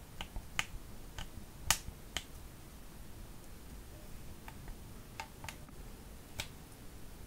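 A string of separate sharp clicks and taps, the loudest about a second and a half in, as a pen-like tool digs pressed glitter eyeshadow out of the pans of a plastic palette.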